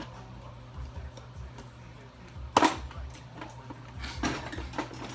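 Metal hand tools clinking as they are handled and rummaged through in a toolbox drawer: one sharp clank about two and a half seconds in, then several lighter clinks near the end.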